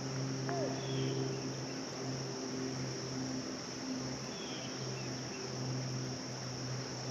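Crickets or similar insects trilling steadily. A few short, falling bird chirps come through about a second in, around four seconds in and near the end, over a steady low hum and a haze of background noise.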